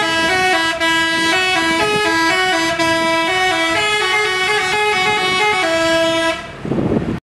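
Bus 'telolet' horn playing a quick tune of stepping notes, several horn pitches sounding together. It stops a little after six seconds, and a short rushing noise follows before the sound cuts off.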